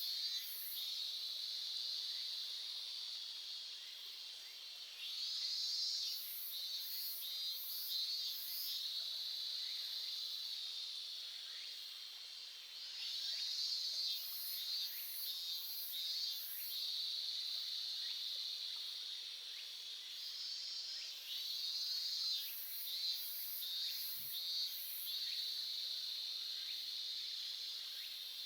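Insects calling: a steady high-pitched trill with pulsing bursts that swell every few seconds, and groups of very high rapid chirps that recur, over a faint hiss of stream water.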